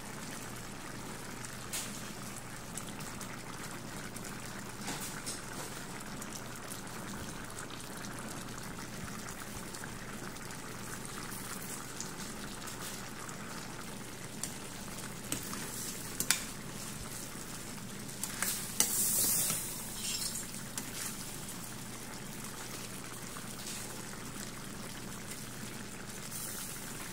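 Coconut-milk stew of squash and string beans simmering in a stainless steel pan, giving a steady bubbling sizzle. A few sharp clicks of a spoon or lid against the pan, and a louder burst of stirring noise about two-thirds of the way through.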